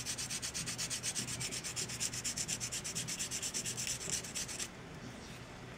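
240-grit sandpaper rubbed by hand over a plastic scale-model fuselage, in quick, even back-and-forth strokes, smoothing the joint with a clear resin part. The strokes stop a second or so before the end.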